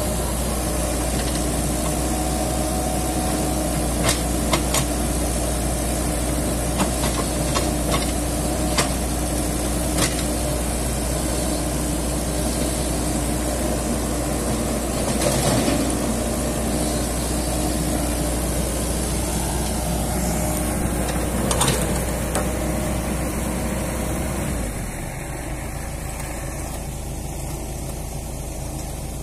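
Komatsu PC78US excavator's diesel engine running steadily, with a few sharp knocks in the first ten seconds. About 25 seconds in, it drops to a quieter, lower idle.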